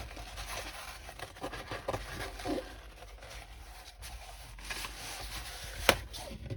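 Rustling and small taps from diamond painting kit packaging and paper being handled, with one sharp tap near the end.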